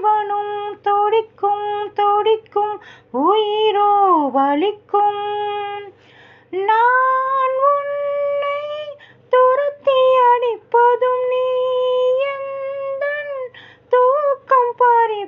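A high female voice singing a wordless melody of long held notes and short gliding phrases, over a faint steady low hum, with little other accompaniment.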